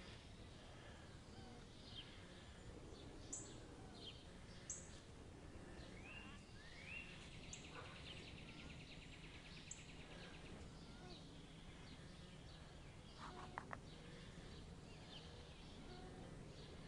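Faint outdoor background noise with scattered short, high bird chirps, a couple of rising whistles and a buzzy trill in the middle.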